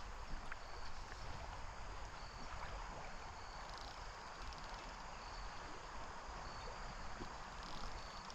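Steady rush of creek water flowing over shallow riffles, with short high-pitched insect chirps repeating about once a second.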